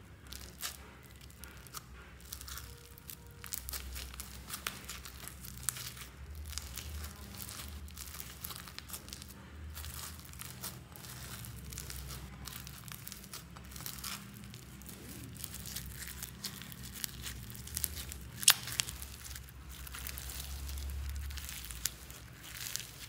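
Foam-bead slime (floam) being kneaded and squeezed by hand: a dense crackling and crunching of the foam beads, with sticky tearing as the slime is pulled apart. One sharper pop stands out about eighteen seconds in.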